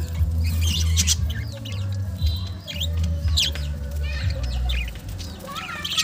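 Budgerigars chirping and warbling in short, scattered high calls, over a low steady rumble.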